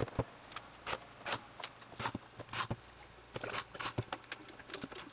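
Irregular light clicks and taps as a geared e-bike hub motor is handled and turned over on a bench, its metal shell and the cable's plug knocking lightly.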